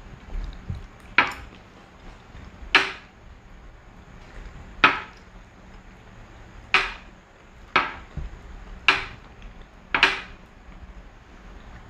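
Seven sharp knocks, each ringing briefly, spaced unevenly about one to two seconds apart.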